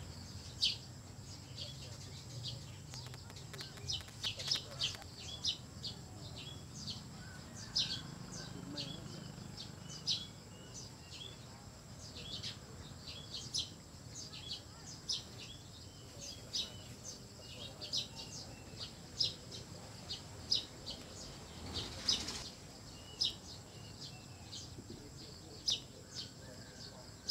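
Small birds chirping: many short, sharp, high chirps at an irregular pace of one or two a second, over a faint steady high-pitched whine and a low background murmur.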